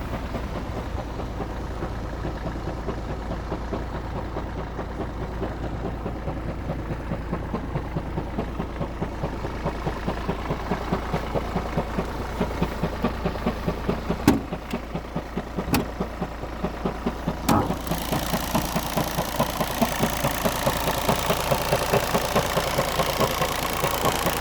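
Opel Astra H 1.7 CDTI diesel engine idling shortly after a cold start, with a steady, evenly pulsing noise. The owner says this noise lasts four to five minutes after starting in winter and then stops. A few sharp clicks come about halfway through.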